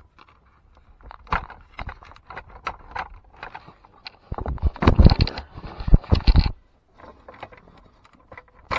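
Plastic clicks and scrapes as the wiring plug on the back of a Toyota 4Runner's HVAC control panel is worked loose by hand, with a louder stretch of rubbing and scraping starting about four seconds in and lasting about two seconds.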